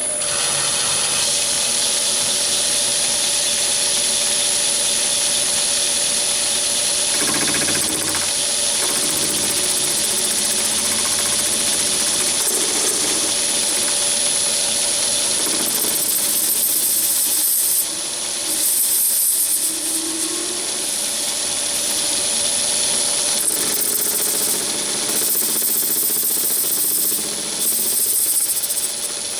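Metal lathe running with a steady motor whine while the cutting tool machines a brass plumbing fitting. From about halfway through, the cutting hiss comes and goes.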